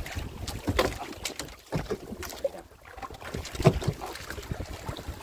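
Irregular knocks and rustling as a net-covered fish trap is handled against the side of a boat, with one sharper knock a little past halfway.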